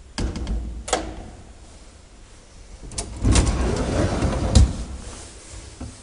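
Vintage Flohr traction elevator's doors and mechanism: a clunk with a low rumble at the start and a click about a second in. About three seconds in comes another click, then a louder rattling slide that ends in a sharp bang.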